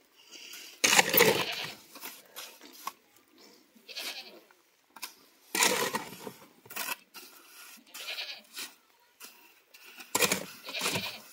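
Goats bleating in a few short, separate calls.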